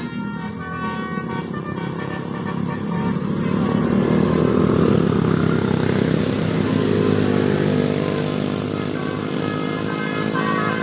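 Tour bus telolet (basuri) horn playing a quick melody of short pitched notes, then the bus's engine and road noise growing loud and fading as it passes close. The horn melody sounds again near the end.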